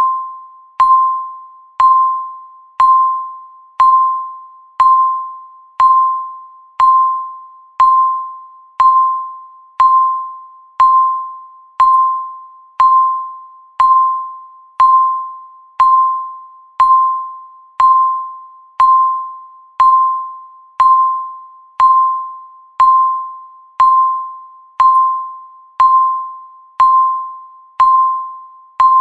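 Countdown timer's per-second tick sound: a single bell-like ding of one steady pitch, struck once every second and fading quickly after each strike.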